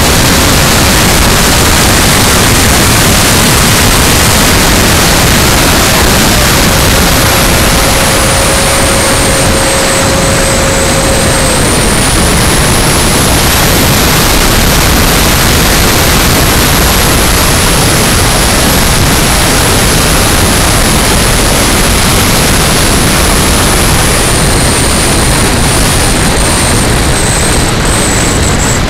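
Freewing Yak 70 mm electric ducted fan jet in flight, heard from a camera on its tail fin: a loud, steady rush of wind on the microphone under the fan's high whine, which dips, rises again and eases off slowly toward the end. A steady lower tone runs through the first dozen seconds and then stops.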